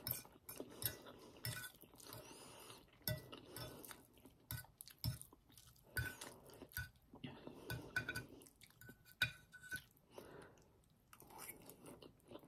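Close-up chewing of palabok rice noodles: soft, irregular wet mouth sounds and small clicks. The metal fork clinks and scrapes now and then on the ceramic plate.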